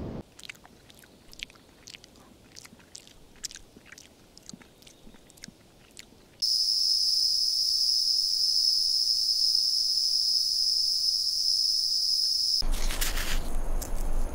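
Tasmanian devil chewing meat: soft irregular crunching clicks. Then a loud, steady high-pitched buzz for about six seconds, cut short near the end by a rustling hiss.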